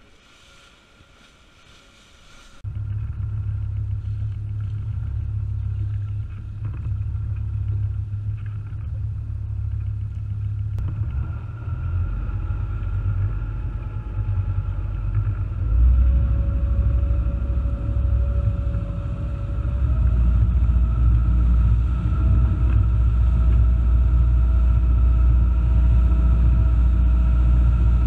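Motor boat's engine running with a steady low drone, cutting in abruptly about two and a half seconds in after a quiet start. The engine note steps up twice in the second half as the boat is throttled up and gets under way at speed.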